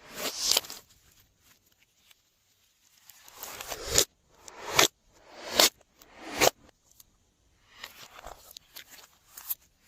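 Glossy slime being worked by hand. Four sticky, crackling squishes come about a second apart, each swelling and ending in a sharp snap, with softer crinkly squishing near the end.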